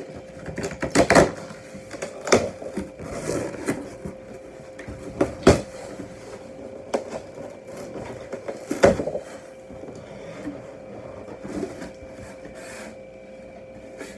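Cardboard shipping box being torn open by hand: packing tape ripping and cardboard flaps being pulled and rustled, with several sharp rips and knocks at irregular moments.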